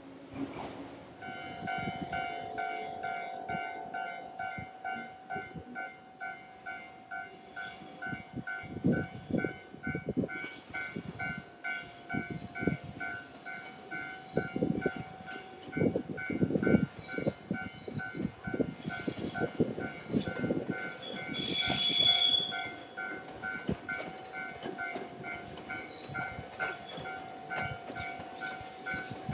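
A JR 383-series limited express Shinano train pulling in, its wheels clattering over rail joints and points, with a loud high-pitched squeal about twenty seconds in. A repeating warning bell tone rings behind it throughout.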